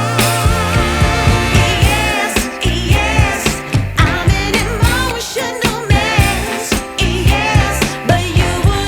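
Background music with a steady beat and a wavering sung vocal line.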